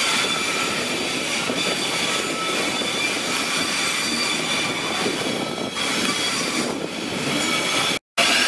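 Freight train's loaded covered hopper wagons rolling through a curve: a steady rolling noise of steel wheels on rails, with several high squealing tones held throughout from the wheels grinding against the rails. The heavy wheel-on-rail friction is the sign that the wagons are loaded. The sound breaks off for a moment near the end.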